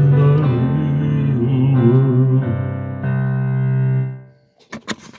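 Closing bars of a country song on keyboard and backing band: a short melodic phrase, then a held final chord that dies away about four seconds in. A few quick knocks follow near the end as the recording phone is handled.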